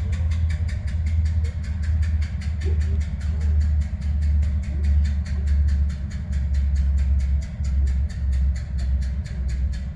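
CSX diesel locomotive engine running with a heavy low drone and a fast, regular knock, about six or seven a second, which the filmer takes for a rod knock.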